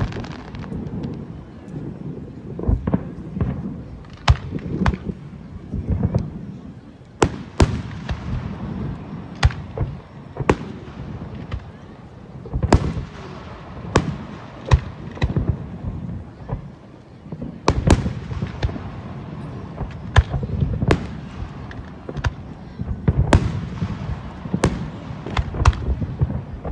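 Fireworks display: aerial shells bursting in an irregular series of sharp bangs, often one or two a second, over a continuous low rumble.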